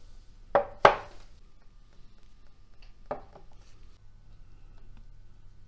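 Terracotta pots knocking as they are set down on a marble counter: two knocks close together about half a second in, and a third, quieter one about three seconds in.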